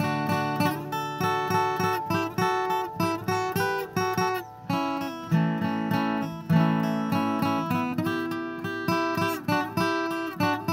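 Background music: an acoustic guitar strummed and picked, with notes that ring out and decay.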